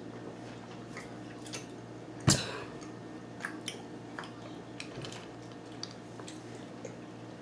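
Seafood being eaten by hand: scattered small clicks and crackles of shells being handled and chewing, with one sharp knock about two seconds in.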